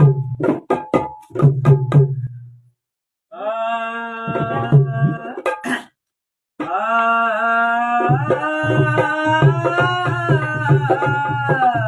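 Tabla strokes with a deep resonant bass, then a singer holding long, sliding, wavering notes over the tabla, broken by two short pauses.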